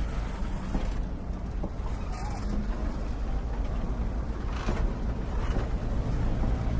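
Diesel locomotive engine rumbling steadily, a deep low drone under a noisy wash.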